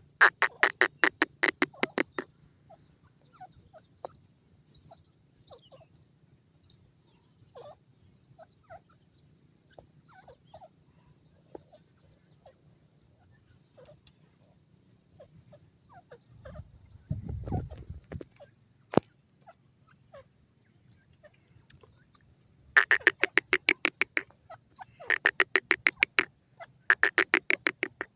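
Female francolin (teetar) calling in bursts of rapid, evenly repeated high notes, each burst about two seconds long: one at the start and three in quick succession near the end. Faint high peeps from the chicks come between the bursts, and there is a brief low rumble about two-thirds of the way in.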